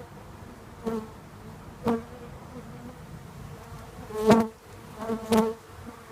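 Honeybees from a package buzzing steadily, with four sharp knocks, each joined by a brief louder buzz, about one, two, four and five seconds in, the last two the loudest.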